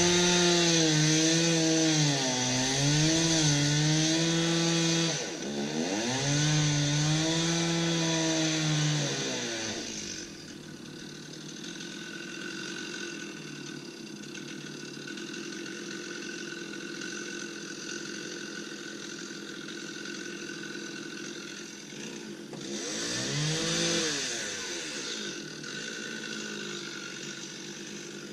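Two-stroke chainsaw running at high revs for about ten seconds, its pitch sagging and recovering as it cuts wood, then dropping to a steady idle, with one brief rev about three-quarters of the way through.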